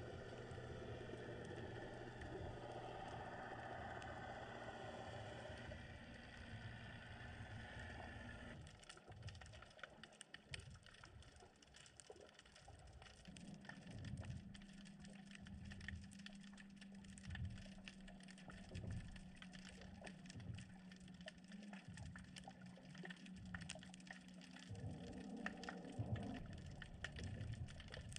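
Faint underwater sound picked up by a submerged camera: a steady low hum with several even tones, which drops away about eight seconds in, leaving scattered crackling clicks over a low steady drone.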